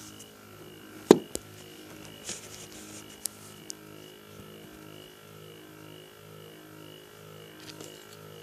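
Stepper motor running under Arduino control, a steady multi-tone hum that pulses in an even rhythm. A sharp knock about a second in.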